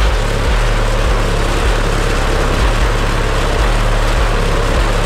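Cars running, with loud, steady engine and road noise and deep bass notes pulsing underneath.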